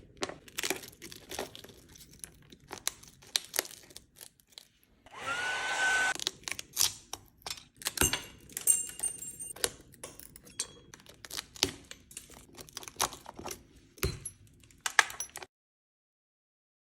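Repeated light taps, clicks and scraping as tools chip away an iPhone's cracked back glass. There is one brief whirring blast about five seconds in.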